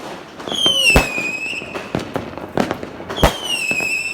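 Fireworks cake firing whistling shots: two shrill whistles, each falling slightly in pitch and lasting about a second, with sharp bangs about one and three seconds in and smaller pops between.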